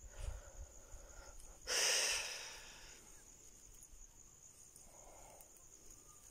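One breathy exhale close to the microphone, lasting under a second, about two seconds in, over a faint steady insect chirring.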